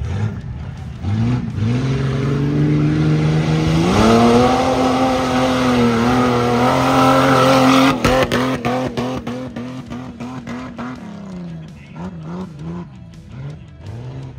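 Off-road race vehicle's engine revving hard: it climbs in pitch about a second in and again about four seconds in, then is held at high revs. About eight seconds in it drops off abruptly amid a quick run of sharp clicks, followed by short, lower blips of the throttle.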